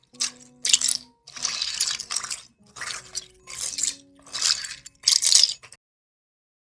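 Loose plastic keyboard keycaps being dropped by the handful into a bowl, clattering in about eight quick bursts. The sound stops abruptly near the end.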